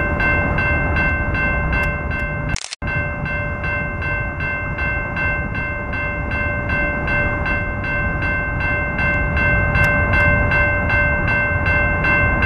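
Freight train locomotive horn held as one steady chord over the low rumble of the approaching train, broken by a brief dropout about three seconds in.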